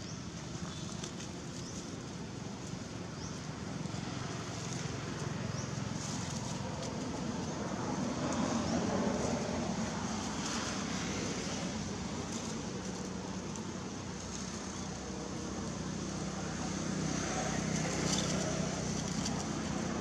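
Steady outdoor background noise with a low hum that swells twice, once in the middle and once near the end.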